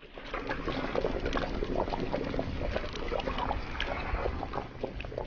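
Braised pig trotters and rice cakes in a thick sweet-spicy sauce, sizzling and bubbling in a hot tray: a dense, steady crackle of thick bubbles slowly bursting.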